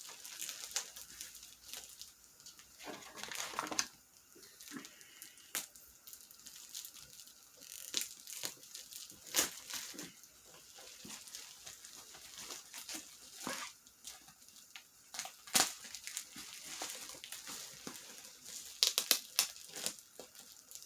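Packaging being handled and unwrapped by hand: crinkling and tearing of wrapping, with many sharp clicks and taps and a quick cluster of clicks near the end.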